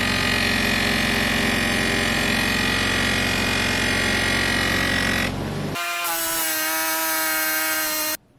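Bench grinder running with a loose cotton buffing mop as a brass bell is held against it for polishing: a steady motor hum under a rubbing hiss. After about six seconds the sound changes to a steady ringing tone, which cuts off suddenly near the end.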